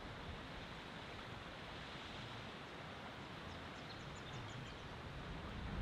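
Steady rush of a shallow river running over rocks. A short run of faint, quick high chirps comes about two-thirds of the way through.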